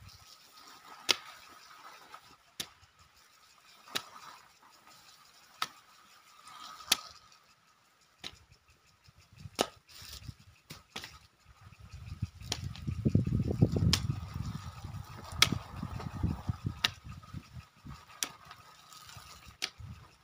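Hoe blade chopping into garden soil, a sharp strike about every second and a half. A low rumble swells for several seconds past the middle.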